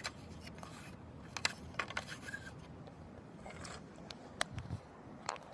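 A few faint, sharp clicks and light handling noise, scattered through a quiet pause.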